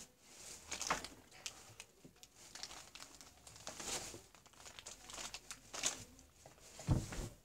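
Irregular rustling and crinkling close to the microphone, with a few faint clicks and a soft low knock near the end.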